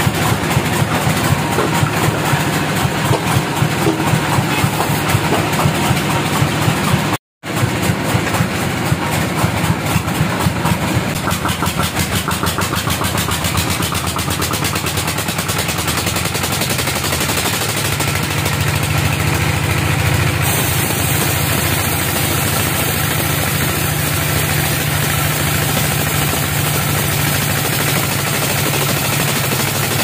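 Sawmill engine running steadily with a fast, even pulse. The sound drops out for an instant about seven seconds in, and from about eighteen seconds the pulse smooths into a steadier low hum.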